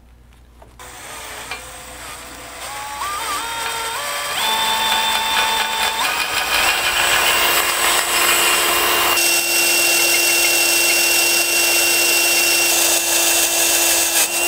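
DeWalt XR cordless drill with a larger bit, boring out a pilot hole to full size. About a second in the motor starts and climbs in speed in steps over the next few seconds, then runs steadily under load.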